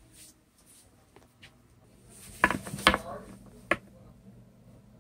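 Handling knocks and clicks on a hard tabletop: a quick cluster of sharp knocks about halfway through, then one more sharp click, with faint voices in the background.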